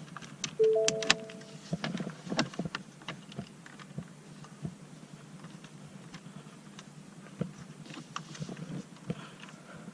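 A car's two-note electronic warning chime sounds once just after the start. It is followed by scattered light clicks and taps of a hand tool and plastic dash trim being worked around the start button.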